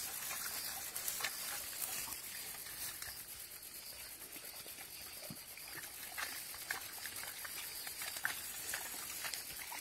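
Rustling and crackling of tall dry grass and brush being pushed through, with many scattered short snaps of stems.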